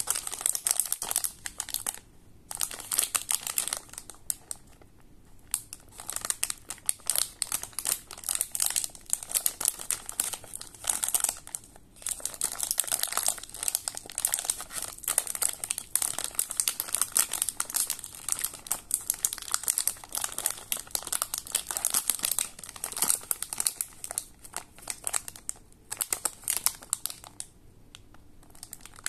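Plastic wrapper of a packet of coffee biscuits crinkling and crackling as it is handled and squeezed in the hands, in stretches broken by a few short pauses.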